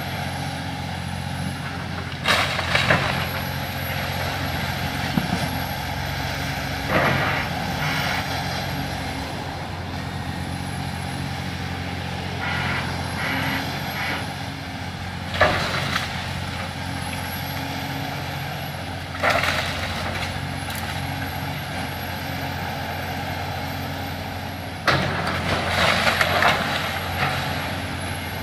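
Diesel engine of a CAT excavator running steadily while its bucket tears into a house, with about five loud crashes and crunches of breaking wood and roofing spread through.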